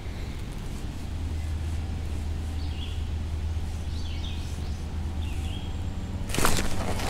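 A few short bird chirps over a steady low rumble. About six seconds in, a sudden loud burst of rustling handling noise starts as a fish is hooked and the rod and baitcasting reel are worked.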